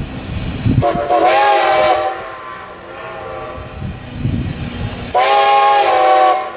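Steam whistle of Strasburg Rail Road No. 90, a 2-10-0 Decapod steam locomotive, blown in two long blasts, each a little over a second long and about three seconds apart. Between the blasts the locomotive's exhaust can be heard chuffing.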